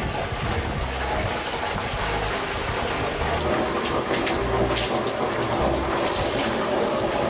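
Artesian spring water gushing from a spout and splashing into a granite basin: a steady, even rush of falling water.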